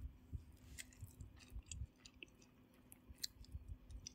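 Faint chewing of a crispy deep-fried maida bonda-style snack: irregular soft crunches and small mouth clicks.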